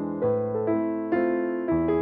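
Background music: gentle piano, notes struck about every half second and left to ring.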